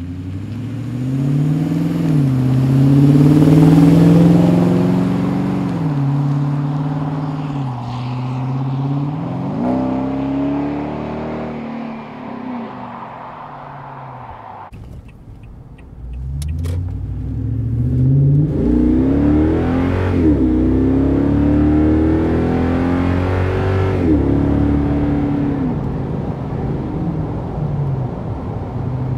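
Toyota Tundra V8 through an SPD true-dual 3-inch straight-through exhaust with X-pipe, accelerating: the engine note climbs and drops back several times as it shifts up. It fades about twelve seconds in, then a second pull begins after a couple of sharp clicks around sixteen seconds.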